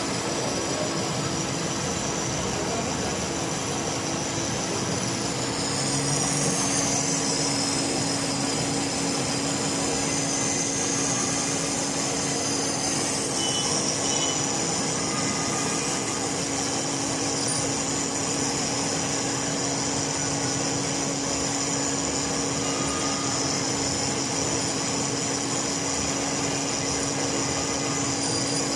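Metal-turning lathe running steadily, a constant hum with a high hiss above it that shifts slightly in pitch a few seconds in.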